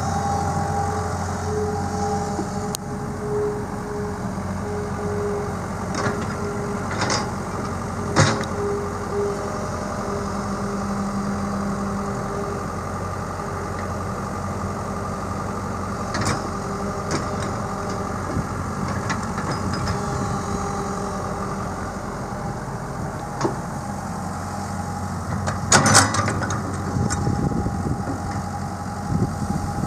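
Komatsu PC128UU-1E excavator's S4D102E four-cylinder diesel engine running steadily at idle, with a few sharp knocks over the top, the loudest near the end.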